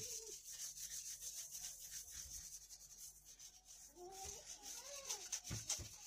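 A sponge scrubbing glazed ceramic wall tiles: quick, repeated back-and-forth rubbing strokes.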